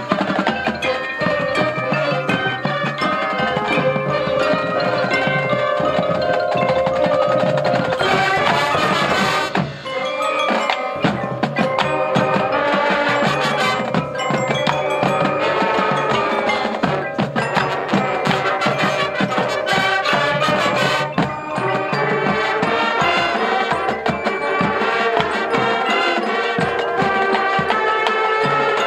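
High school marching band playing its halftime show, with the percussion and mallet instruments prominent; the music dips briefly about ten seconds in.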